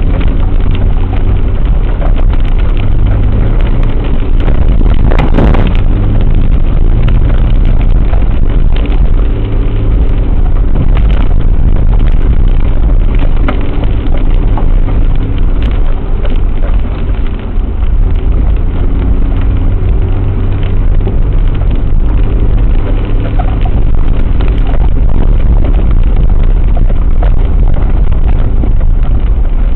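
A 4WD's engine runs at low speed as the vehicle crawls along a rough, muddy track, heard from a windscreen-mounted dashcam. Frequent knocks and rattles from the bumpy ground run through it, with one louder jolt about five seconds in.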